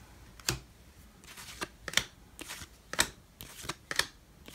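A hand flipping through a stack of Topps baseball trading cards, sliding each card off the front and onto the back. Sharp card flicks come about once a second, with softer sliding and rustling between them.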